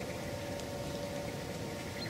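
Wind rumbling steadily on the microphone, with a faint steady hum running through most of it.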